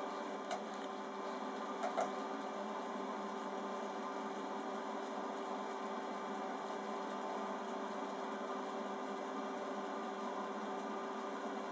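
Haywire twister leader-twisting machine running steadily with an even motor hum, with a few light clicks in the first two seconds.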